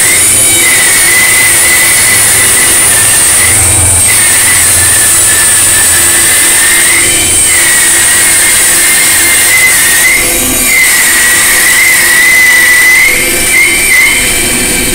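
Band saw resawing a thick board, the blade cutting steadily along its length with a high whine that wavers in pitch as the board is fed, dipping briefly a few times near the end.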